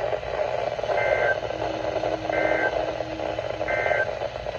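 Emergency Alert System end-of-message data bursts: three short two-tone digital squawks, each about a third of a second long and about a second and a third apart, over steady radio hiss. They mark the close of an alert.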